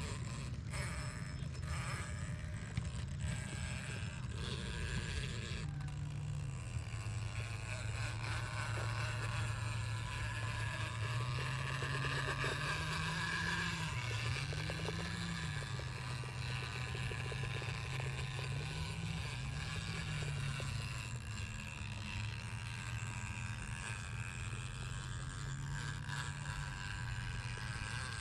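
Axial RBX10 Ryft RC rock bouncer's brushless motor and geared drivetrain whining as it crawls over rock, the pitch rising and dipping a few times with the throttle.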